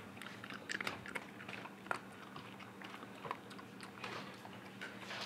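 Jack Russell terrier chewing on a stick: faint, irregular little clicks and crackles as its teeth work on it.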